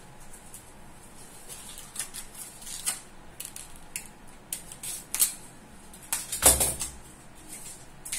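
Scattered small clicks and rattles of hard plastic and metal parts being handled on a workbench, with one louder knock about six and a half seconds in.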